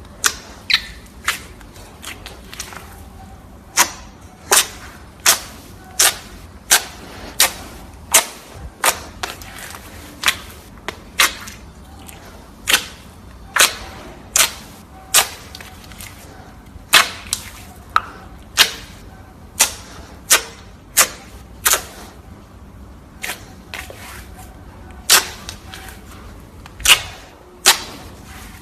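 Slime being pressed and stretched by hand, with trapped air popping in a long series of sharp clicks, roughly one or two a second.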